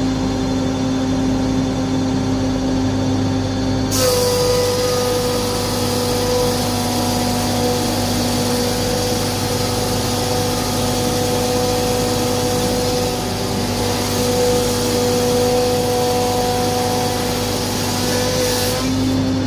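Charnwood PT10S planer thicknesser running, its induction motor humming steadily with the spiral cutter block spinning. About four seconds in, the sound jumps louder and brighter as a board feeds through and is cut, then drops back near the end as the board clears.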